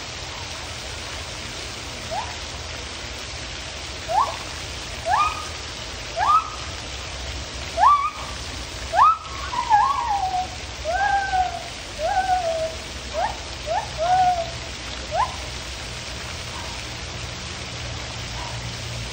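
Gibbon song: a run of rising whoops that come closer together and louder, peaking about eight or nine seconds in, then breaking into falling, wavering hoots and quick rising notes. The calls stop about fifteen seconds in, over a steady background hiss.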